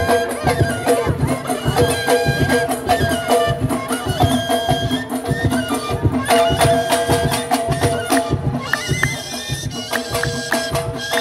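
Live traditional Moroccan Amazigh folk music for the Ajmak line dance: a sustained melody moving in steps over a steady low beat.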